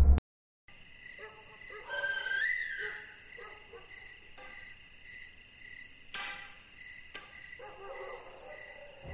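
Night ambience of crickets chirping steadily, with a brief rising call about two seconds in and a sharp click about six seconds in. A loud drone cuts off abruptly at the very start.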